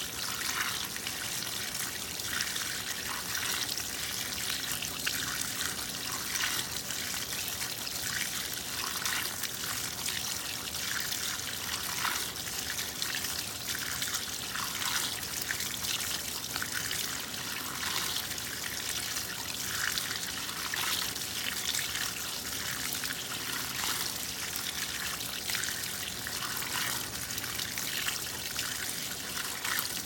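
Water pouring into the tub of a 2012 LG top-load washer as it fills early in a Normal cycle: a steady, unbroken splashing stream.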